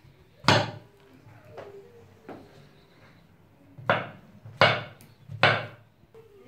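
Kitchen knife slicing button mushrooms, the blade knocking on a wooden cutting board. There is one sharp knock about half a second in, fainter taps after it, then three knocks in quick succession near the end.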